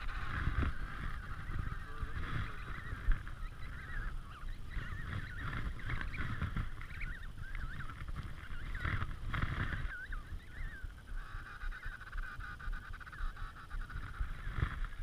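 Emperor penguin colony calling: a continuous chorus of many overlapping wavering calls, with wind rumbling on the microphone.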